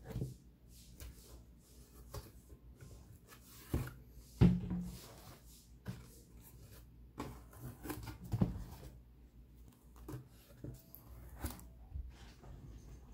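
Running shoes being lifted out of a cardboard box and set down: irregular rustling and knocks against the cardboard, with the loudest thumps about four and eight seconds in.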